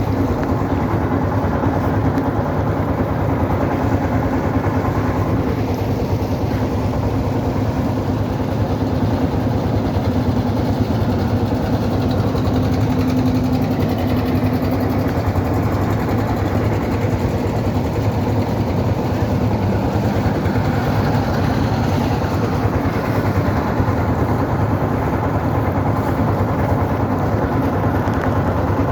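Boat engine running steadily under way, an even low drone with no change in speed.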